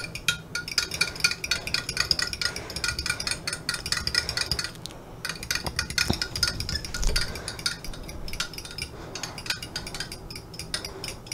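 Eggs and milk being beaten with a metal utensil in a tall drinking glass: rapid clinking of metal against glass, with a brief pause about five seconds in.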